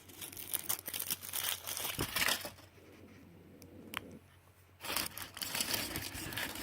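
Foil wrapper of a Kinder Surprise chocolate egg crinkling as it is handled and peeled open, stopping for about two seconds midway with one small click, then crinkling again.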